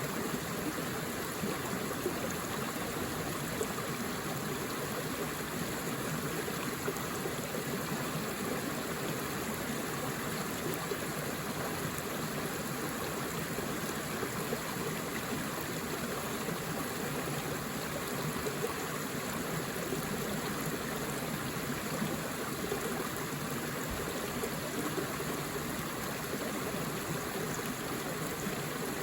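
Forest river flowing: a steady rush of running water over stones.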